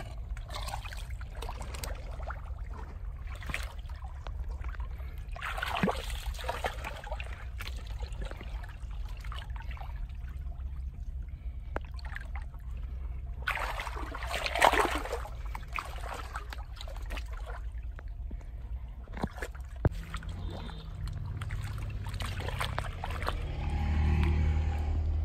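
Hands sloshing and stirring through shallow muddy water, with water trickling and dribbling, and two louder splashy stretches about six and fifteen seconds in. A steady low rumble lies underneath.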